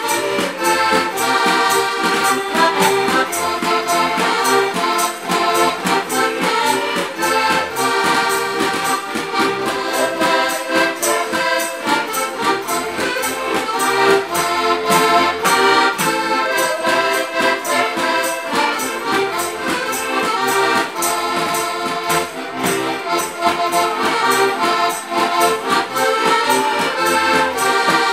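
Diatonic button accordions (Slovak heligónkas) playing a Slovak folk tune together, with a steady, even rhythmic pulse throughout.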